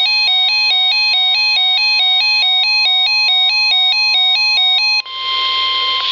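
Emergency alert tones: an electronic two-note alarm switching between two pitches about four times a second, over a steady tone. About five seconds in it cuts off, leaving a steady alert tone over radio hiss.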